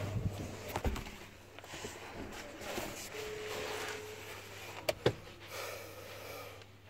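Clothing and body rustling against the seat, with a few sharp knocks, as a person squeezes into the third-row seat of a Kia Telluride. Two knocks come about a second in and a double knock about five seconds in, over a steady low hum.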